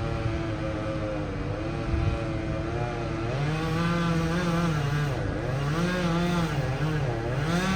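Chainsaw running at high revs while cutting through a tree trunk. Its pitch holds steady at first, then dips and recovers several times as the saw loads in the cut.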